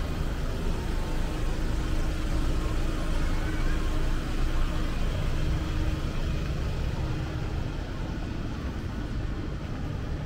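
City street traffic noise: a steady low rumble of road vehicles.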